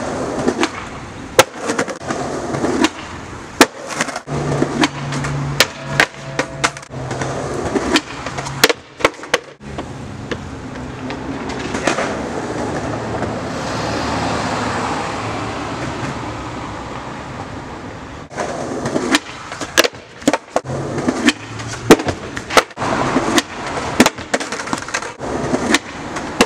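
Skateboard wheels rolling over concrete, clacking over pavement cracks in bursts of sharp clicks, with a steady rushing noise in between. Near the end the run-up finishes in the board's pop as the skater launches down the stair set.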